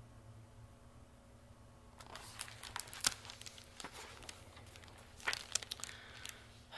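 Room tone at first, then about two seconds in a picture book is handled and lowered: paper and cover rustling and crinkling, with a few sharper taps and clicks.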